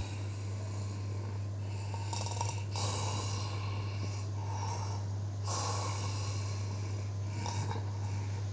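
Elderly woman snoring loudly in deep sleep, with noisy breaths about every two to three seconds.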